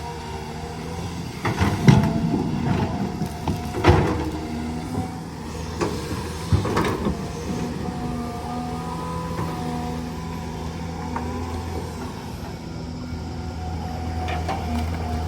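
Heavy diesel engine running steadily, with a few loud clanks and knocks from about two seconds in to about six and a half seconds in.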